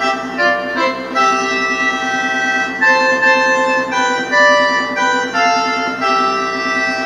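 Roland D-50 synthesizer playing a melody on a harmonica-like reed patch, held notes changing every half second or so over a steady low pulsing note.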